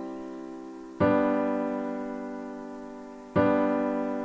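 Background music of slow piano chords. Each chord is struck and left to ring and fade, with a new chord about a second in and another near the end.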